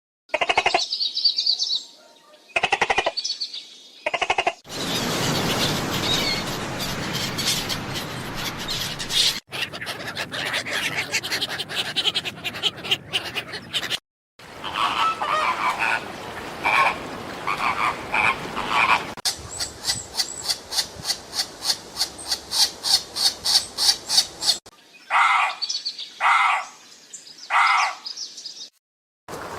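A run of short clips of bird calls cut one after another, including a stretch of rapid repeated calls at about four a second in the second half.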